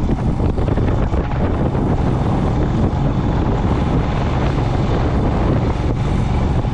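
Steady wind buffeting the microphone while riding a motorcycle at speed, with the bike's engine and road noise rumbling underneath.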